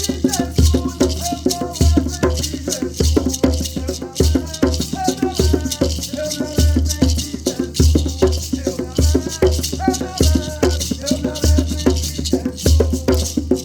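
Kariri-Xocó song: maracá rattles shaking continuously over a low, repeated drum beat, with a melody gliding above.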